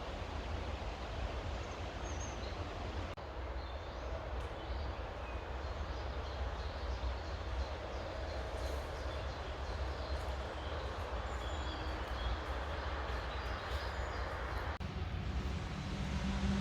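Outdoor ambience: a steady low rumble and hiss, with scattered faint bird chirps through the middle.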